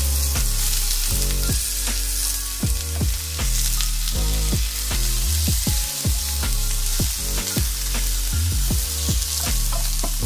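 Marinated chicken strips and chopped spring onions sizzling as they fry in a hot pan, with a spatula stirring and turning them.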